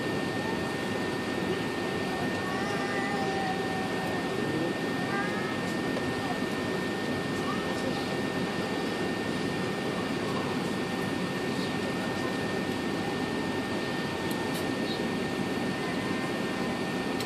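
Steady cabin noise inside an Airbus A380 on the ground: the even rush of the jet engines and air conditioning, with a thin steady high-pitched tone over it.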